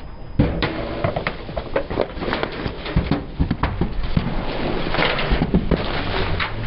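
Many sharp cracks and crunches over a rough noisy bed as brittle objects are crushed under a car's tyre, starting abruptly about half a second in.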